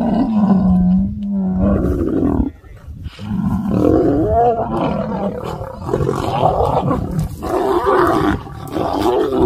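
Male lions vocalizing loudly as they fight, in two long bouts with a short break about two and a half seconds in.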